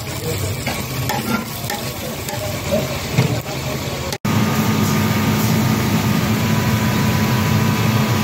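Fish pieces deep-frying in hot oil in a large steel wok, sizzling, with a metal skimmer scraping and stirring against the pan. After a sudden break about four seconds in, a steady low hum takes over.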